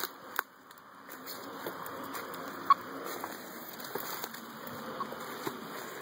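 Footsteps and rustling of brush and leaves as a person walks through woodland undergrowth, with scattered small cracks and snaps.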